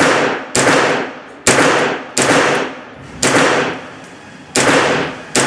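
Semi-automatic rifle shots fired one at a time at an uneven pace, about seven in all, each sharp crack followed by a short echoing decay.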